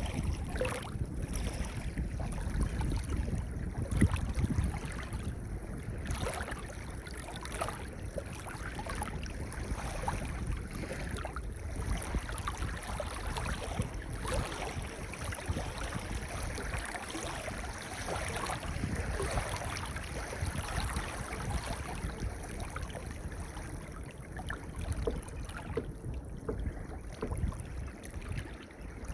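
Gentle ocean waves washing over a pebble beach, a continuous wash with a low rumble, loudest about four seconds in.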